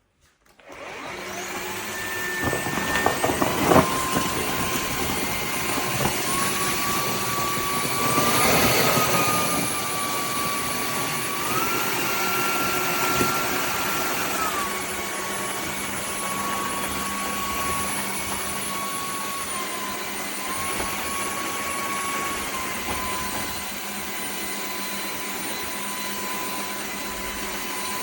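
Dreame H12S cordless wet-and-dry floor vacuum switching on about half a second in and running with a steady rushing and a motor whine. The whine steps up and down in pitch a few times.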